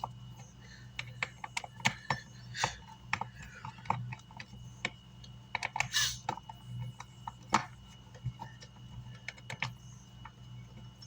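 Irregular small metallic clicks and taps of a screwdriver, screws and metal parts being handled on the amplifier's chassis during reassembly, over a low steady hum.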